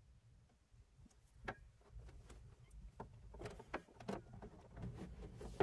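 Faint clicks, knocks and rustles of hands handling a red battery cable and pressing a plastic ANL fuse holder into place, coming more often after the first second or so.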